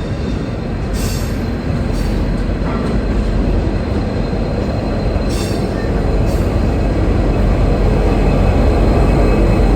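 V/Line N class diesel locomotive and its passenger cars rolling slowly through the station, a heavy rumble that grows louder. A few sharp clicks from the wheels run through it.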